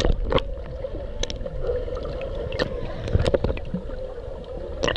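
Muffled underwater sound picked up by a submerged camera while snorkeling: a steady hum with scattered clicks and bubbling.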